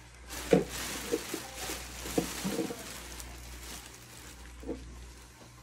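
Thin plastic mattress bag crinkling and rustling as hands work inside it, loudest in the first half, with a few soft knocks.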